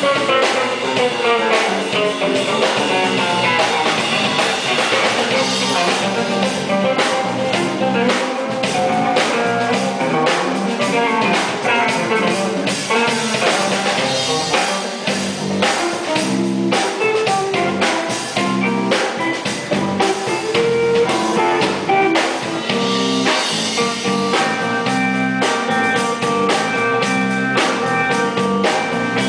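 Live blues-rock band playing an instrumental passage. A Telecaster-style electric guitar plays lead lines with bent, sliding notes over a drum kit and bass guitar.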